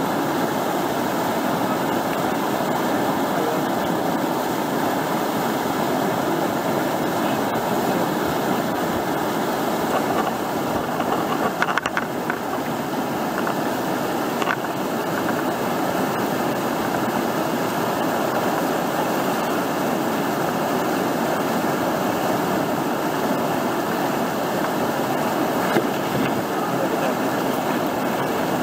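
Steady rush of whitewater pouring over a river ledge and through a standing wave, with a few brief knocks about halfway through.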